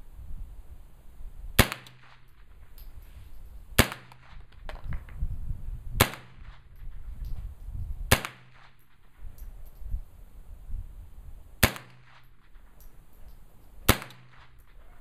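AR-15 fitted with a CMMG .22 LR conversion bolt firing .22 Long Rifle rounds semi-automatically: six sharp shots, roughly one every two seconds.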